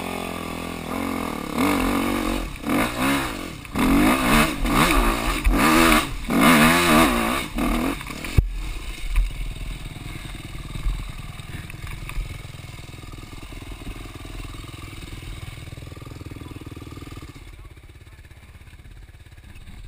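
Dirt bike engine revved in a run of quick rising-and-falling blips for about eight seconds, then dropping abruptly to a low, steady idle.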